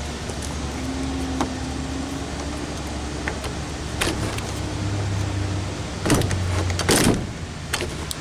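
RV lockset door latch and handle being worked: scattered clicks, then two louder clattering clacks about six and seven seconds in, over a steady low hum.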